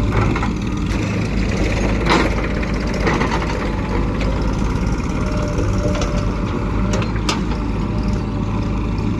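Diesel engine of a JCB 3DX backhoe loader running steadily while it works, with a few sharp clanks, one about two seconds in and another about seven seconds in.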